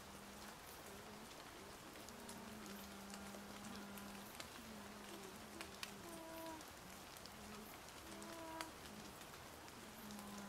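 A woman humming softly in long, low held notes that break and shift in pitch now and then, over faint scattered ticks.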